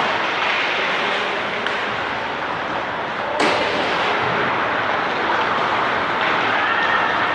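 Ice hockey rink ambience: a steady wash of noise from the arena, with one sharp knock about three and a half seconds in.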